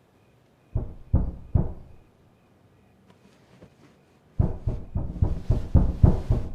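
Knocking on a door: three knocks, then after a pause of a few seconds a rapid, louder run of about ten knocks.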